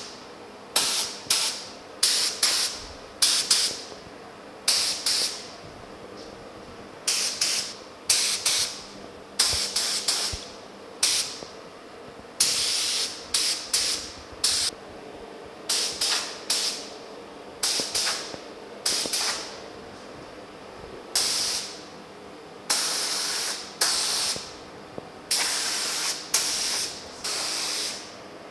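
Gravity-feed paint spray gun hissing in short trigger bursts as base coat is sprayed onto a grille, many quick passes of under a second each, with a few longer passes of one to two seconds in the second half.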